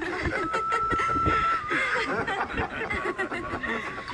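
Men laughing and chuckling, over music with a long held high note and light drum taps.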